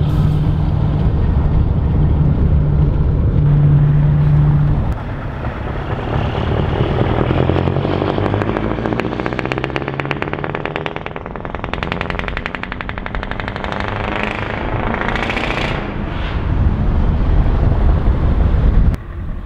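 Scania V8 truck engines. First a steady drone from a truck running alongside at motorway speed. Then the rapid firing pulses of a V8 truck's exhaust as it accelerates away, with the pitch climbing and dropping through gear changes and a strong rise about two-thirds of the way in.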